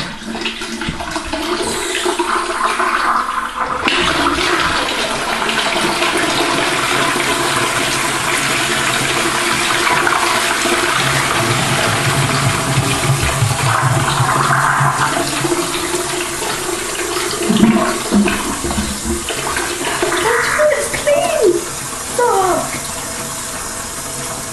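Toilet being flushed: water rushing into the bowl, followed by a long, steady hiss of water running as the cistern refills.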